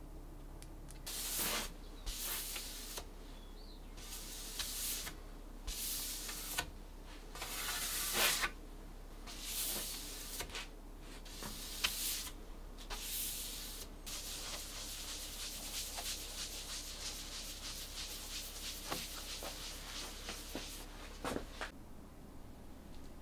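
Shellac polishing pad (a cloth-wrapped wad) rubbed over a wooden surface in French polishing. About ten separate swishing strokes are followed by several seconds of continuous, quicker rubbing.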